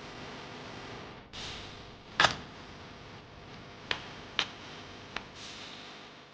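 Four short, sharp clicks or taps over a low steady hiss; the first, about two seconds in, is the loudest, and the rest come over the next three seconds.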